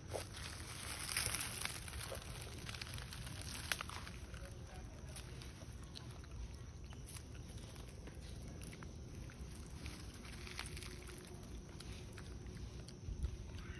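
Faint crinkling and clicking of a foil snack packet handled by a macaque, over a low outdoor background, with the loudest rustle about a second in and a low thump near the end.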